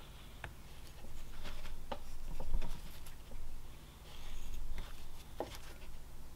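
Knife blade making short step cuts into a basswood (lime) block: a scattering of small slicing clicks and scrapes, some sharper than others, several seconds apart.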